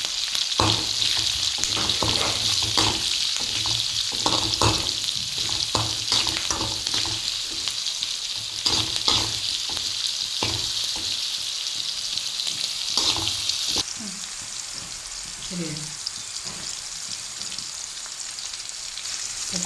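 Green chillies and garlic sizzling in hot oil, stirred with a spoon that scrapes and knocks against the pan, being fried until they wilt. The sizzle drops off sharply about fourteen seconds in.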